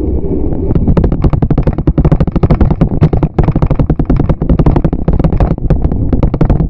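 Bicycle and its mounted camera rattling and clattering in quick, uneven knocks as the bike jolts over rough pavement, over a steady low rumble. The clatter gets denser and louder about a second in.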